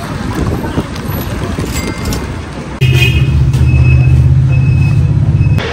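Outdoor traffic noise, then about three seconds in a loud, steady low engine hum as a motor vehicle idles close by; it cuts off abruptly near the end.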